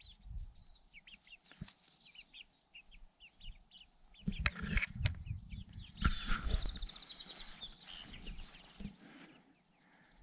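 Backyard chickens calling with short, high chirps over a steady high insect trill. Louder bumps and rustles come about four and six seconds in.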